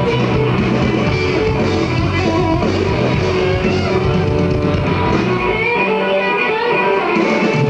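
Live rock band playing loud, with electric guitars, bass and drums through the PA. The deep bass drops out about two-thirds of the way through while the guitars carry on.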